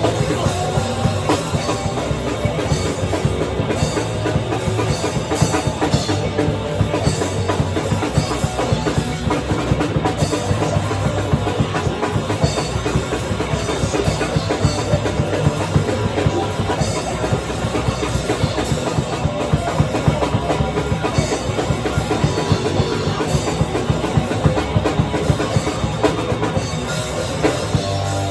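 Loud rock band music, led by fast, busy drum kit playing with bass drum and snare, going on without a break.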